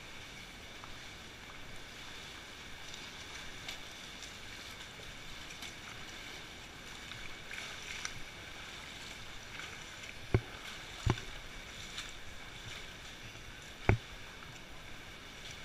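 Water splashing and sloshing as people wade along a shallow, rocky cave stream, over a steady rush of water. Three sharp knocks in the second half, the last near the end, are the loudest sounds.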